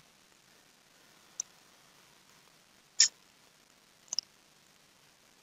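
Computer mouse clicking, four sharp clicks in all, the last two a quick double click near the end, over faint room hiss.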